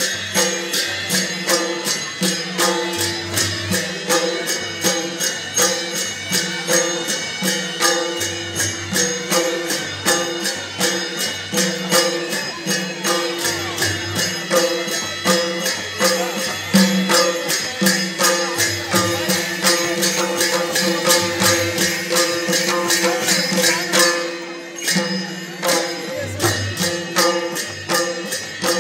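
Traditional music for a Bhairab masked dance: a fast, steady beat of drums and cymbal-like strokes under several held melodic tones. The beat breaks off briefly near the end.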